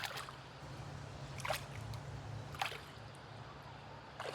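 Water sloshing and splashing in short bursts, about four in a row roughly a second and a half apart, as someone wades through deep water.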